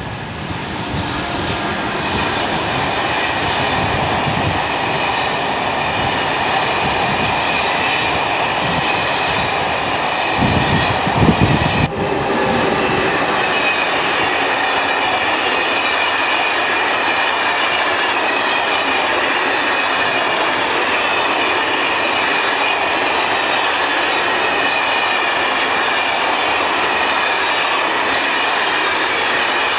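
SNCF passenger trains of Téoz coaches passing close at speed: loud, steady rolling noise of wheels on rail. There is an uneven louder stretch just before a sudden break about twelve seconds in, then another train passes with the same steady wheel noise.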